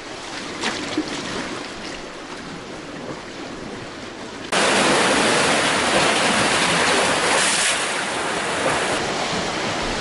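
Sea waves washing and surging around the rocks and pier supports, a steady rushing noise that turns suddenly much louder about halfway through.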